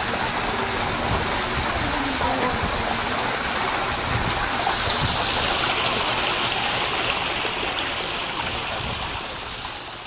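Steady rush of running water, like a stream or small waterfall, fading away over the last two seconds.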